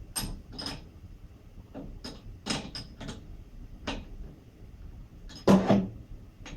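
Scattered metal clicks and knocks, with one heavier knock about five and a half seconds in, from an exercise bike pedal being worked against its crank arm while the thread fails to start.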